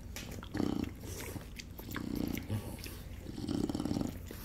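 Juliana mini pig eating ice cream off a spoon: wet smacking and chewing clicks, with three short low grunts.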